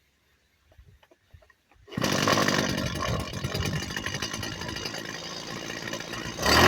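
Zenoah TRZ265 brush cutter's small two-stroke engine starting: a few faint clicks, then about two seconds in it catches suddenly and runs roughly at low speed. The seller notes that this engine makes an abnormal noise.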